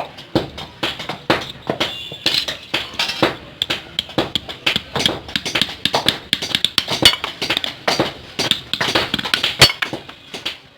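Rapid, irregular metal taps and clinks, several a second, as light hammer or tool strikes on metal during knife work.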